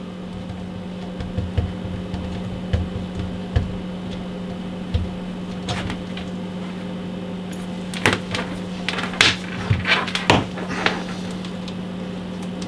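Scattered clicks and clunks of coax cables and BNC connectors being handled and fitted on a workbench, busiest near the end, over a steady low hum.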